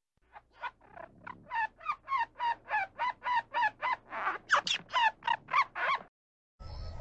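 Gray squirrel giving a long run of short, harsh barking calls, about three a second, growing louder partway through.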